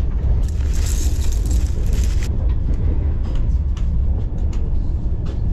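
Vande Bharat Express electric train running at speed, heard inside the passenger coach as a steady low rumble. From about half a second in, a high rustling hiss lasts nearly two seconds, with a few small clicks, as food packaging is handled.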